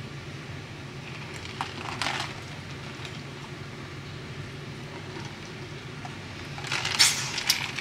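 Someone drinking from a plastic squeeze sports bottle: quiet sips and swallows over a steady low hum, with a louder rush of noise near the end as the drinking stops.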